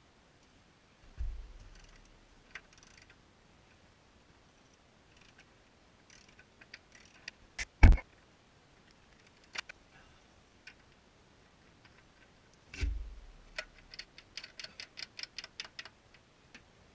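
Hand tools clicking and knocking against a Jeep Grand Cherokee WK's front strut and upper control arm, with a sharp metal knock about eight seconds in and two dull thumps. Near the end a ratchet clicks rapidly, about five clicks a second, for a couple of seconds.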